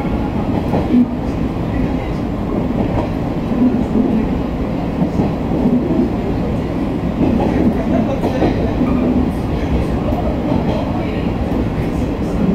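Steady running noise of a JR East 115-series electric train heard from inside the carriage: wheels on the rails and the car's rumble as it rolls along the line.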